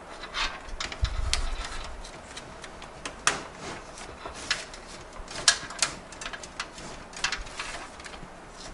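Irregular light clicks and taps of a metal I/O shield being worked and pressed into its opening in a PC case, with a dull handling thump about a second in.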